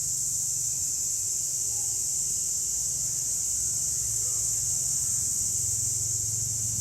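Cicadas singing in chorus: a steady, unbroken high-pitched buzz, with a faint low hum underneath.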